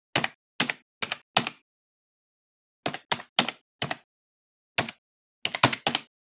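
Typing on a computer keyboard: about a dozen sharp key clicks in uneven groups. Four come near the start and four in the middle, then a single click and a quick run of four near the end.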